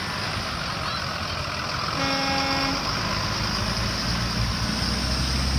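Heavy road vehicle's engine running, with a horn sounding once for under a second about two seconds in. The low engine rumble grows louder near the end.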